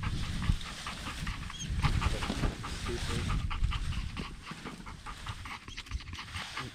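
Labrador retriever panting steadily in quick, breathy strokes.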